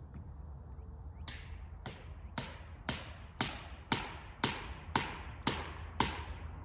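A sledgehammer driving a felling wedge into a tree's cut: about ten sharp strikes, roughly two a second, starting about a second in and growing louder, each ringing briefly.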